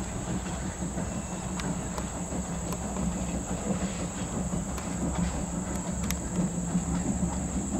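Train of Norfolk & Western 475, a 4-8-0 steam locomotive, rolling along the track: a steady rumble with scattered sharp clicks of wheels and rail, and a light hiss of steam.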